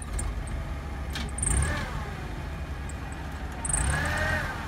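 Old Nissan forklift engine running steadily, revving up twice as it handles the load, each time with a whine that rises and then falls.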